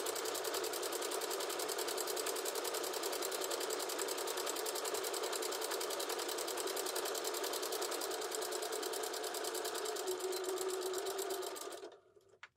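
Electric domestic sewing machine running steadily at a fast, even pace, sewing a zigzag stitch along a raw fabric edge to keep it from fraying; it stops near the end.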